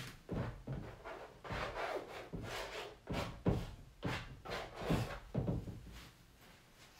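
About a dozen quick scratchy strokes of a painting tool rubbing across a stretched canvas, one after another for about six seconds, then stopping.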